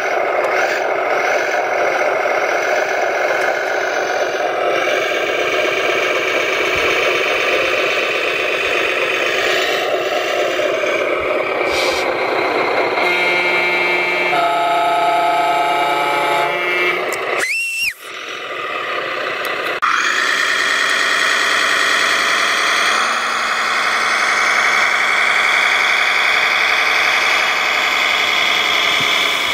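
RC construction machines and RC truck running, a steady engine-like drone layered with motor and gear whine. There is a brief rising squeal and dropout about eighteen seconds in, after which the sound changes.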